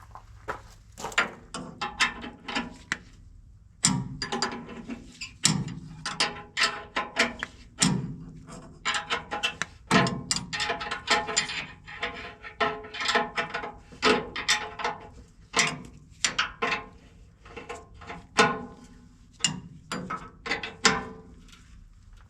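Hand ratchet wrench clicking in irregular runs of strokes, with short metallic rings, as a nut is tightened down on the combine's corn head.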